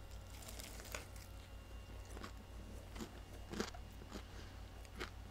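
A bite into a hand-breaded fried chicken sandwich, then faint chewing with about six short crisp crunches spread a second or so apart: the breaded coating crunching.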